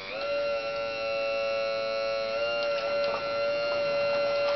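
Radio-controlled model excavator's motor running with a steady high whine, rising in pitch slightly about halfway, while the arm swings and the bucket digs into dirt, with a few faint clicks.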